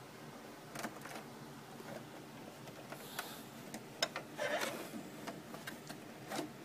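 Plastic water bucket being pulled out of a 30-pint dehumidifier: a few sharp plastic clicks and knocks, with a brief scraping slide about four and a half seconds in. The dehumidifier's fan is not running, because the unit has shut itself off with a full bucket.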